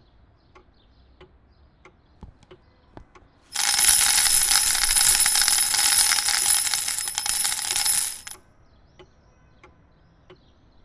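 A rapid, high metallic jangle that starts about three and a half seconds in, runs about five seconds and cuts off suddenly, after a few faint scattered clicks.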